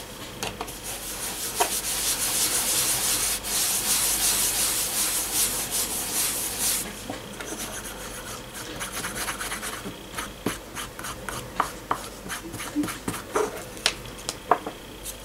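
A sponge and fingertips rubbing the paper backing off a coaster's reverse image transfer, with a steady scratchy rubbing. About seven seconds in it stops, giving way to quieter, lighter rubbing and small scattered taps.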